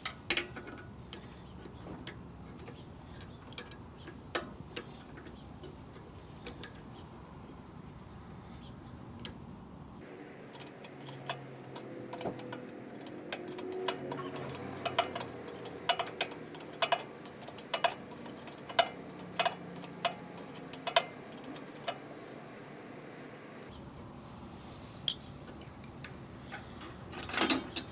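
Hand tools and metal bike parts clicking and clinking as a component is worked loose from the rear axle: scattered sharp ticks and taps, coming thickest in the middle.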